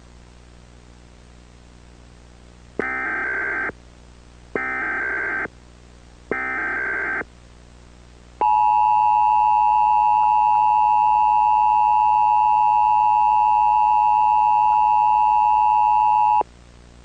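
Emergency Alert System tones for a Required Monthly Test. First come three short bursts of warbling SAME header data, each just under a second long and spaced about two seconds apart. Then the two-tone EAS attention signal holds steady for about eight seconds, is the loudest sound, and cuts off sharply.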